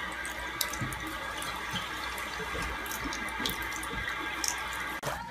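Water running from a bathroom faucet into a sink, a steady hiss with small splashes and drips as a cat paws at the stream; it cuts off suddenly about five seconds in.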